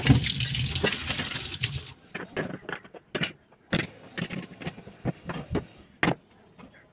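Tap water running into a steel sink over a gas hob's pan support, stopping about two seconds in. Then a string of about ten separate clinks and knocks as the black pan supports and burner parts are set back onto a glass-top gas hob.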